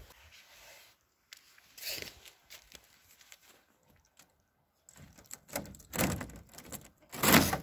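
A goat working at a door latch with her mouth, rattling the metal latch and knocking the corrugated plastic door panel in a few separate knocks and clicks, loudest near the end. The goat is opening the door by herself.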